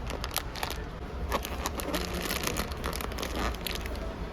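Dense crinkling and clicking handling noise, thickest in the middle, over a steady low hum.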